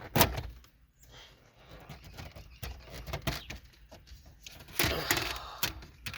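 Plastic dashboard trim panel of a 2011 Scion xB being pried off by hand, with sharp clip snaps and plastic clicking and rattling. The loudest snap comes right at the start, and more clicks follow around three seconds in and again near the end.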